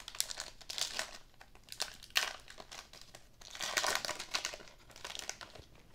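Foil wrapper of a Panini Select basketball card pack crinkling and tearing as it is ripped open by hand, in several short bursts of rustling.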